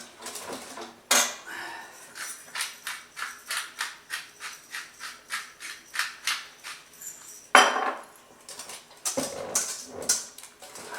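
A utensil clinking against a bowl over and over, about two to three times a second, as seasoning is stirred into the raw duck liver parfait mixture, followed by a few louder knocks near the end.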